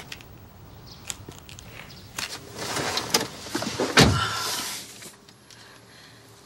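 Footsteps and rustling as a person gets into a BMW SUV, then the car door shuts with a single thump about four seconds in.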